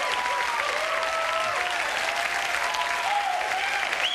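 Studio audience applauding steadily, with scattered cheers and whoops rising and falling over the clapping.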